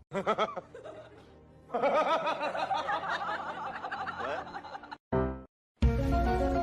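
Laughter over background music: a short burst of chuckling at the start, then a longer stretch of many voices laughing together. The laughter stops about five seconds in and the music carries on.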